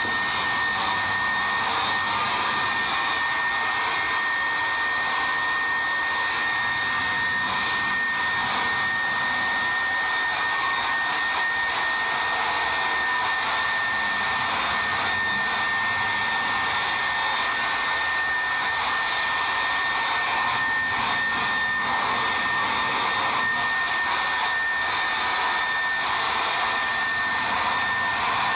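Handheld hair dryer blowing steadily while drying a wet dog's thick coat: an even rush of air with a thin steady whine over it.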